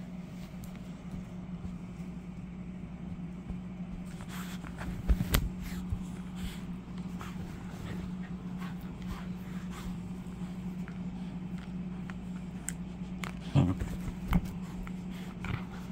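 A window air conditioner hums steadily under scattered rustles and soft knocks from a Scottish terrier tussling with plush toys on a bedspread. The louder knocks come twice, about a third of the way through and again late on.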